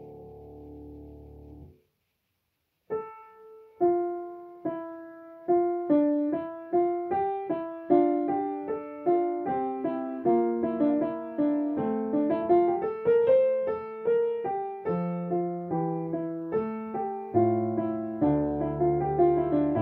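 Grand piano played slowly: single notes at first, filling out into a flowing melody with chords, and low bass notes joining near the end. Before it, a low sustained drone cuts off about two seconds in, followed by a second of silence.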